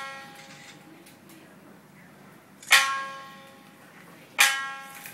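Shamisen struck hard with the plectrum: single sharp, ringing notes about every second and a half to two seconds, each fading out before the next.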